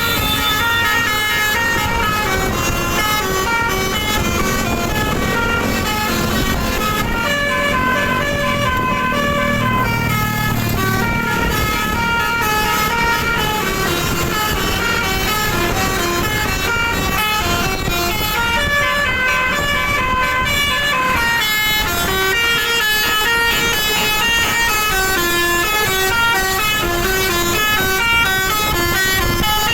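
Bus telolet horn, a Basuri-type multi-tone horn, playing a long melody without a break. Its notes step up and down two or three times a second.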